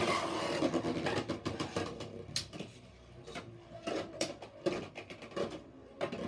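Beyblade spinning tops whirring and grinding against each other in a plastic Beyblade stadium, a dense buzz that fades over the first couple of seconds as they slow. After it come several scattered sharp clicks.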